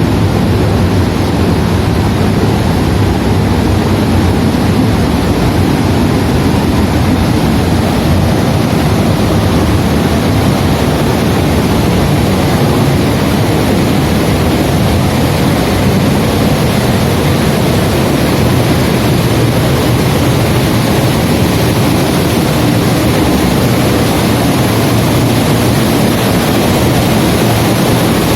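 Loud, steady rush of a large volume of water spilling over a dam like a waterfall, heard from inside the dam behind the falling sheet of water.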